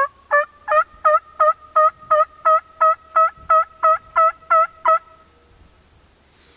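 Turkey yelping: a long, even series of about fifteen loud yelps, about three a second, that stops about five seconds in.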